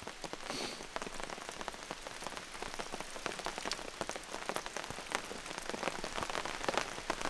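Rain shower falling steadily: an even hiss with many separate drops ticking sharply at irregular intervals.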